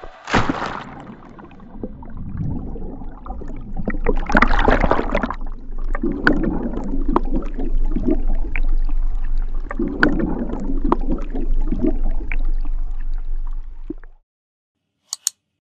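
Water sloshing and gurgling in slow swells about every two seconds over a steady low hum, with small clicks; it cuts off suddenly near the end.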